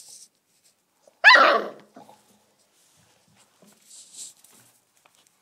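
A komondor puppy gives one short bark, with a wavering pitch, a little over a second in. Faint rustling is heard near the start and again around four seconds in.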